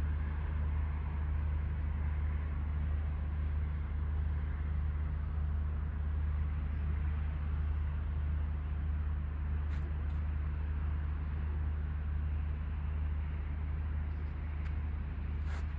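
Steady low drone of a river cruise ship's engines, with a rushing hiss over it. A few faint clicks come near the end.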